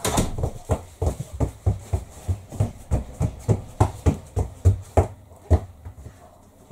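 A small child's footsteps running and stomping on the floor: quick, regular thumps, about four a second, that stop a little before the end.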